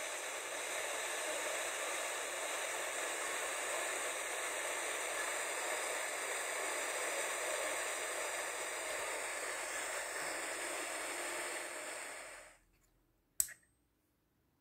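TEF6686 tuner's speaker hissing with FM static, tuned to a frequency where no station comes in. The hiss stops about twelve and a half seconds in, followed by a single sharp click.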